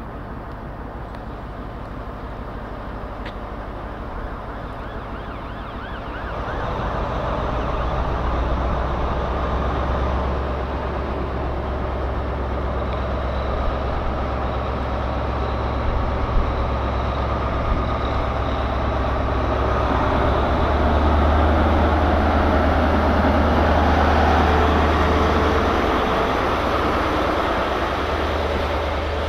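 Class 43 HST power car's MTU V16 diesel engine idling, then opening up about six seconds in as the train pulls away. It stays loud and steady as the power car and coaches move past.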